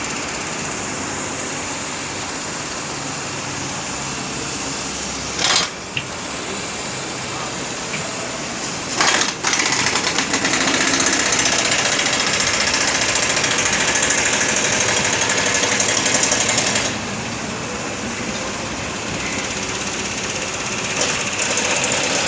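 Hitachi ZX450-1 excavator working, its diesel engine and hydraulics running steadily with a rattling, machine-like rhythm. The machine gets louder for several seconds in the middle, and there are two sharp knocks a few seconds apart before that.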